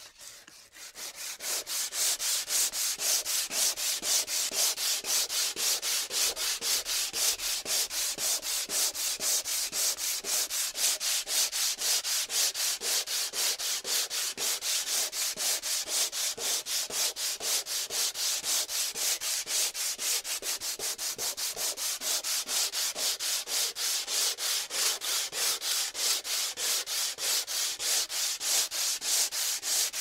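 Sandpaper rubbed back and forth in quick, even strokes, a steady scratchy hiss. It builds up over the first couple of seconds.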